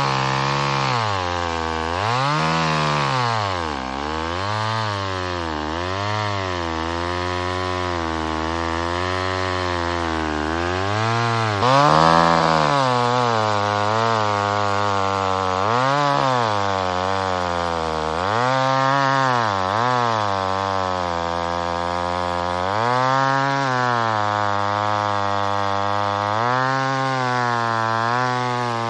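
McCulloch 1010 two-stroke chainsaw running, its engine speed rising and falling again and again every second or two, loudest about twelve seconds in.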